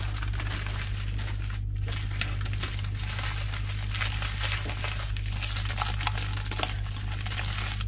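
Plastic crinkling as a taped strip of small plastic bags of diamond-painting drills is handled and laid out, with a steady low hum underneath.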